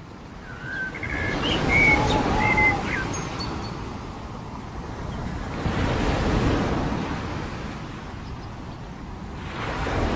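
A rushing wash of noise that swells and fades roughly every four seconds, with a handful of short, high bird chirps in the first three seconds.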